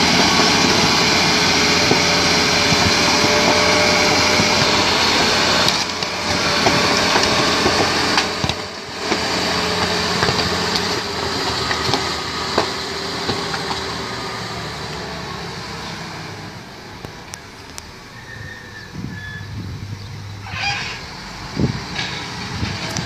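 Wheel loader's diesel engine running under load as the machine pushes into heaps of cardboard date cartons. The engine is loud at first, eases off after about eight seconds and is quieter past the middle, with a few sharp knocks near the end.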